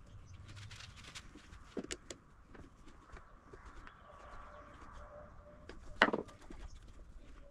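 Small metal clicks and taps of a nut driver working the tensioner pulley nut on a mini lathe's headstock end, then one sharp clatter about six seconds in as the nut driver is laid down on the wooden bench.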